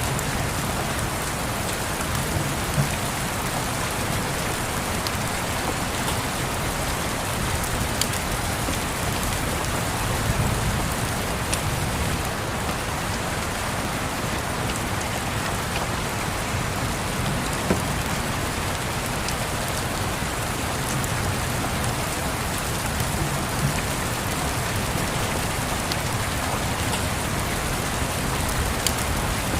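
Steady rain ambience, a continuous even hiss with a low rumble underneath, broken by a few scattered sharp crackles from a fireplace.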